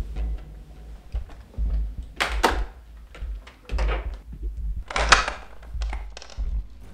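Household doors being handled, a fridge and then an interior door opened by its lever handle, with two louder short noisy sounds about two and five seconds in, over a steady low rumble.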